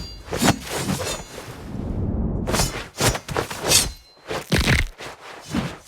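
A run of sharp cracks and knocks, from bones and joints cracking. They come several in quick succession in the second half, after a low rumble in the first couple of seconds.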